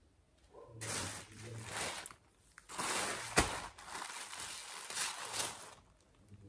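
Rustling and crinkling of bags being handled, in two stretches, with a sharp knock about three and a half seconds in.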